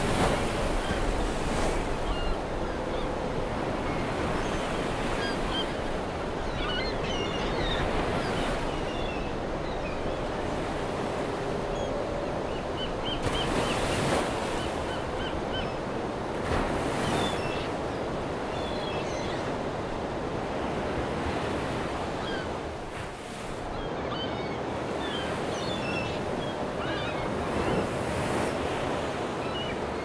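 Ocean surf: a continuous wash of waves with louder breaking surges every few seconds. Faint, short, high bird calls are scattered through it.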